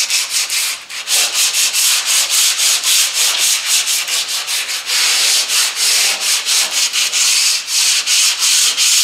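Sandpaper rubbed by hand over body filler (Bondo) on a car's steel quarter panel, a fast back-and-forth scratching of about four to five strokes a second, with a brief pause about a second in. It is light hand sanding to clean up and feather a sharp edge in the filler.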